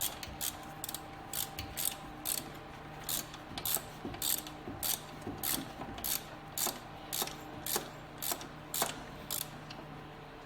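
Hand ratchet clicking in steady strokes, about two a second, backing out a long alternator mounting bolt.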